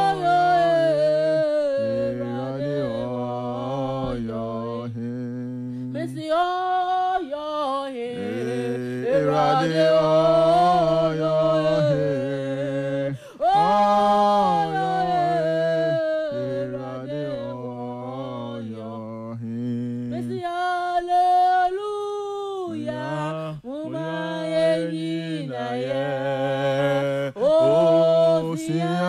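A woman singing a gospel worship song, holding long notes that bend in pitch, with short breaks between phrases. A steady low tone sits under much of the singing.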